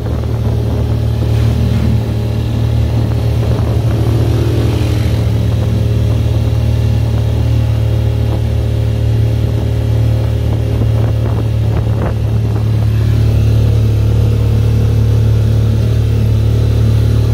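Motorcycle engine of a Philippine motorcycle-and-sidecar tricycle, running steadily under way as a constant low drone. A few short knocks come about twelve seconds in.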